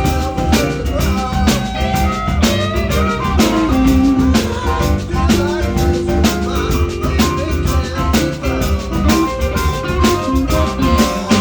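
Live blues band playing an instrumental passage: a drum kit keeping a steady beat under guitar lines that bend up and down in pitch.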